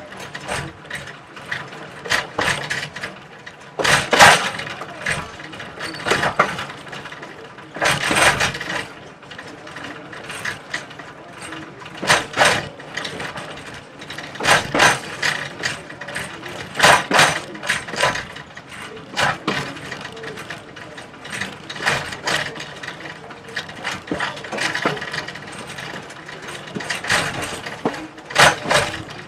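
A slow train running on jointed track: irregular, sharp clacks and knocks of the wheels passing over rail joints, over a low rolling rumble.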